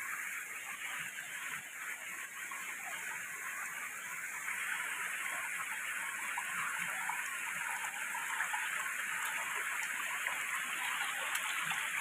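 Shallow monsoon stream running over rocks: a steady rush of flowing water that grows a little louder about four seconds in.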